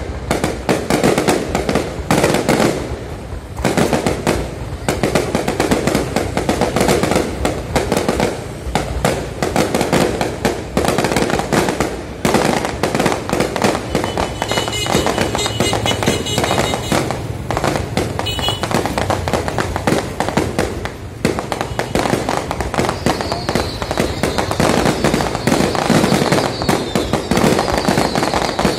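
Fireworks display: a rapid, near-continuous barrage of bangs and crackles from aerial fireworks bursting overhead.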